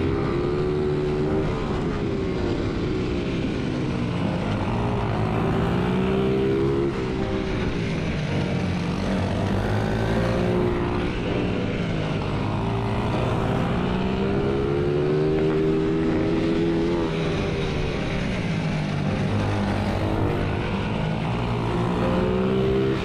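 Pit bike's single-cylinder engine heard onboard at race pace, its pitch climbing and dropping over and over as it accelerates out of and slows into corners.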